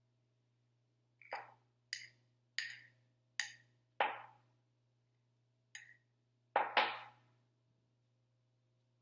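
A teaspoon tapping and clinking while jam is spooned into the cookies: about eight short, sharp taps at irregular intervals, the last two close together and among the loudest.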